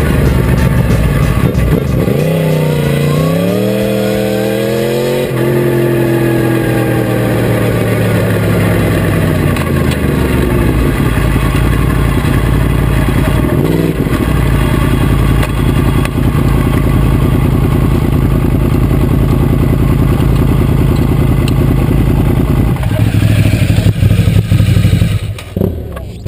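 2012 Yamaha R1's crossplane inline-four engine, rising and falling in pitch through revs in the first few seconds, then winding down as the bike slows and settling into a steady idle. Near the end the engine note changes and the level drops briefly.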